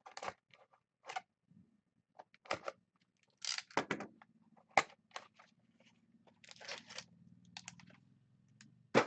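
Crinkling and rustling of a trading-card pack's wrapper as it is handled and opened, in short irregular bursts, over a faint low hum that starts about two seconds in.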